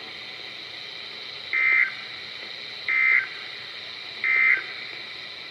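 Three short bursts of NOAA Weather Radio SAME digital data tones, about a second and a half apart, over steady radio hiss. This is the end-of-message code that closes an EAS severe thunderstorm warning broadcast.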